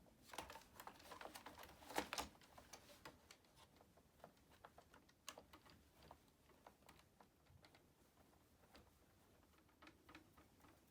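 Light clicks and taps of small plastic parts being handled and fitted, a quick run of them in the first two seconds, then scattered single clicks.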